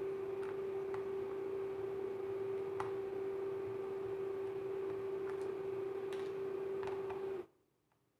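A steady hum with faint, scattered ticks of a hand Phillips screwdriver turning the screws of a laptop's bottom cover. The hum cuts off abruptly near the end.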